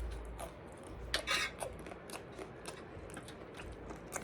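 Small clicks, light scraping and a brief rustle about a second in, from food and tableware being handled during a meal.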